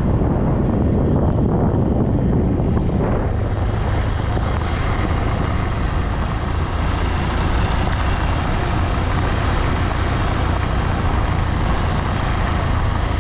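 Vehicle engine running steadily while travelling along a dirt road, with road and wind noise.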